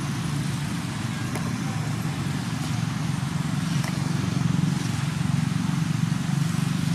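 Steady low rumble of a running motor vehicle engine, growing a little louder about four seconds in.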